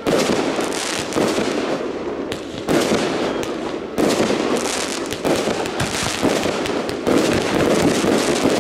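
Consumer aerial fireworks bursting in quick succession: about six loud bangs one to two seconds apart, with crackling and pops between them.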